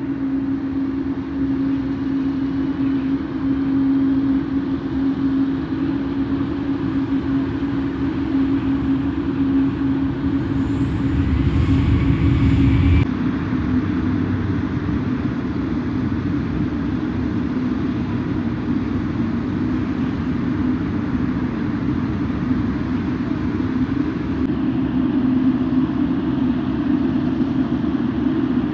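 Boeing 777 freighter's twin GE90 jet engines at taxi power as the aircraft rolls by: a steady drone with a constant hum and rumble. A louder stretch with a rising whine cuts off suddenly near the middle.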